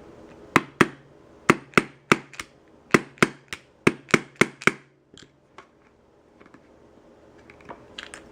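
A small hammer tapping about a dozen times, roughly three strikes a second, driving the longer backstrap pin into a Glock 30 Gen4's polymer frame, followed by a few faint clicks.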